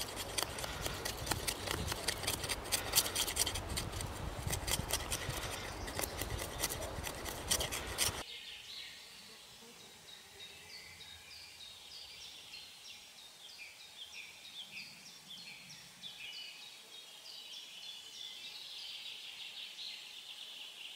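Carbon-steel bushcraft knife shaving curls down a stick to make a feather stick, a fast run of scraping strokes. About eight seconds in, the scraping cuts off abruptly and only faint, repeated high chirping remains.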